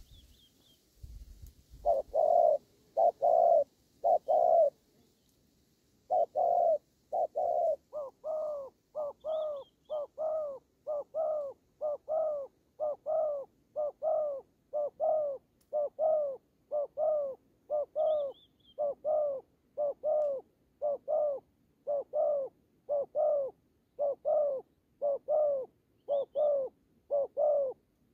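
Spotted doves cooing in a long run of short, even coos, close to two a second, after a brief first group of four. It is the repeated coo a male gives while bowing at a rival dove in a territorial face-off. A small bird chirps faintly a few times in the background.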